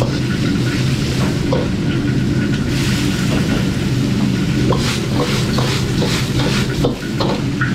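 Metal wok ladle stirring and scraping red rice-wine lees frying in a wok, the sauce sizzling, with scattered clinks of the ladle against the wok over a steady low hum.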